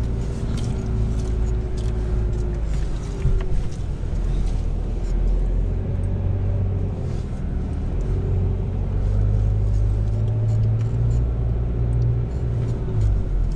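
Four-wheel-drive vehicle driving on soft sand, heard from inside the cabin: a steady low engine and tyre rumble with a wavering hum. Scattered knocks and rattles from bumps in the track, one louder about three seconds in.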